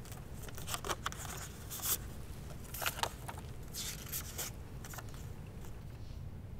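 Paper rustling and crackling in short crisp bursts as an envelope is opened and a folded letter is pulled out and unfolded, over a low steady room hum.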